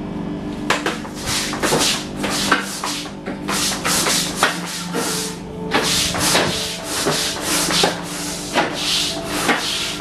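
Stiff brush head of a wet-wash vacuum scrubbing a wet shed floor in quick back-and-forth strokes, about two a second, over a steady hum.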